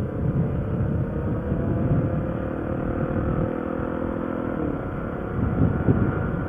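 Motorcycle engine running at road speed, its note rising gently over the first couple of seconds and changing pitch about halfway through.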